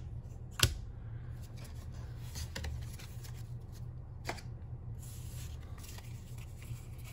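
Pokémon trading cards being handled and laid down on a wooden table: light sliding and rustling of cards, with a sharp tap about half a second in and another about four seconds in, over a low steady hum.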